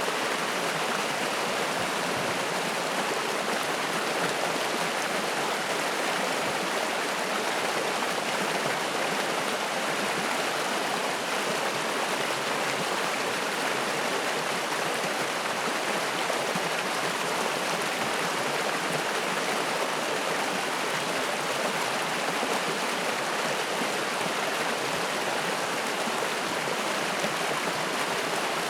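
Spring-fed mountain stream rushing and splashing, a steady, even rush of water with no change in level.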